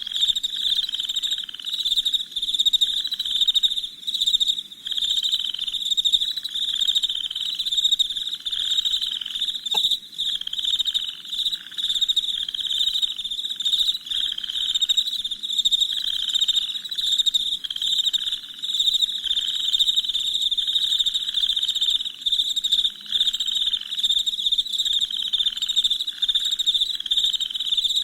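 Crickets chirping steadily at night: a dense, high, pulsing trill, with a lower pulsing call repeating about once a second.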